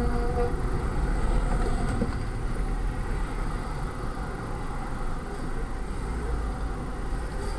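Steady road and engine rumble heard from inside a moving car on a highway, with a semi truck running close alongside.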